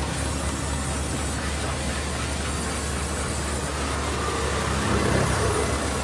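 Band sawmill running, a steady mechanical drone with a low hum.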